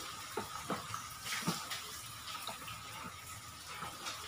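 Spoon stirring a tapioca starch and water slurry in a plastic bowl: wet sloshing with irregular light clicks of the spoon against the bowl.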